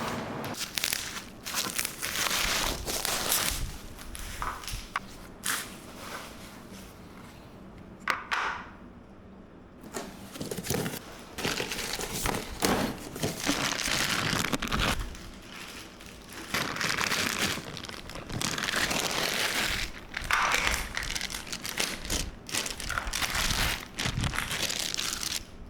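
Plastic packaging crinkling and rustling in repeated spells as chair parts are unwrapped and handled, with a few sharp knocks.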